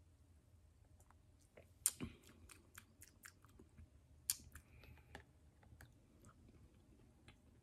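A person's mouth while sipping and tasting a drink: an irregular run of soft wet clicks and lip smacks, the two loudest about two and four seconds in.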